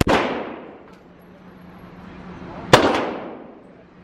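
Two gunshots at a shooting range, one right at the start and the second nearly three seconds later. Each is a sharp crack followed by about a second of ringing echo.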